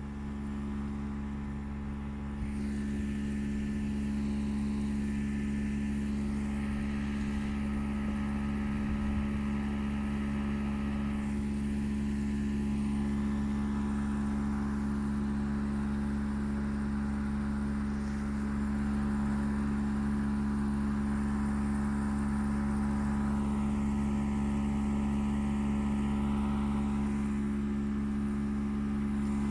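Gree air conditioner running with a loud, steady low drone and a hiss above it, the noise problem that the owner complains of. It grows louder about two seconds in.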